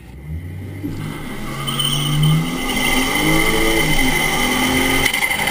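Car engine accelerating hard, its pitch climbing, falling back at a gear change about two and a half seconds in, then climbing again. Heard from a camera mounted on the car's bonnet.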